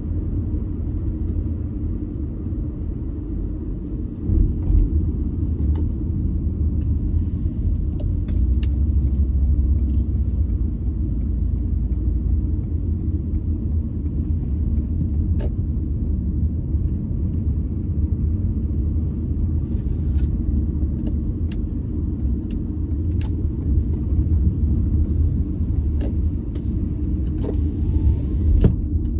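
Steady low road and engine rumble of a car driving slowly, heard from inside the cabin, with scattered light clicks.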